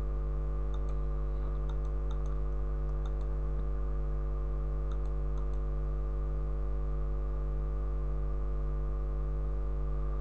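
Steady low electrical mains hum, with a few faint mouse clicks in small groups during the first six seconds.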